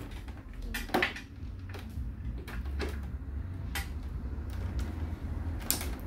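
A handful of light clicks and knocks from the plastic casing of an all-in-one PC being handled on a glass counter, the sharpest near the end, over a steady low hum.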